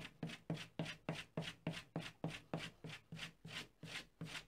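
A steel plane blade stropped on a leather strop charged with cutting compound: quick, evenly paced backstrokes, about three a second, each a short rubbing swish. This is the final polishing of the edge after honing.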